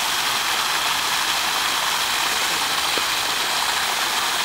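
Steady rushing hiss of running water, with one faint click about three seconds in.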